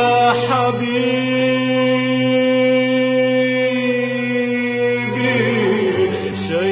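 Arabic song: a singer holds one long, steady note on the "ya" of "ya habibi" for about four seconds, then winds through an ornamented run of notes near the end.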